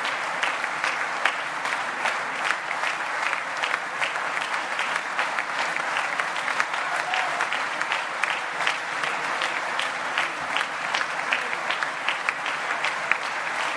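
A large audience applauding steadily, many hands clapping at once with single sharp claps standing out.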